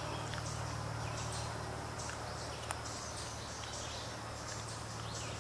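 Forest ambience: short, high chirps of woodland birds and insects repeating a little over twice a second, over a faint steady low hum.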